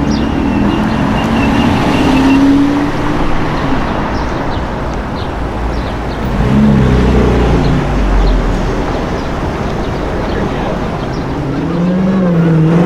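Road traffic with car engines running and passing, a steady low rumble throughout.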